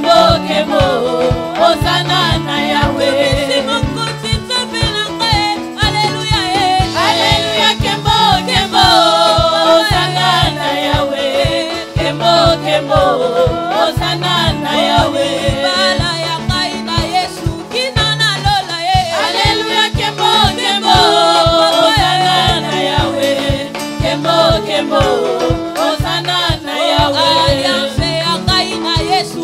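Gospel worship song: voices singing over a bass line and a steady drum beat.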